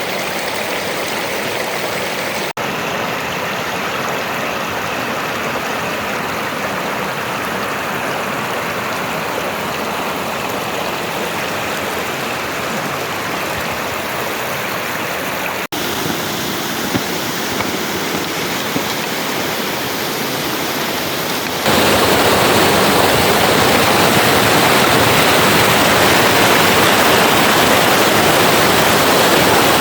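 River water rushing steadily over rocks, with two very short dropouts. It becomes louder about two-thirds of the way through.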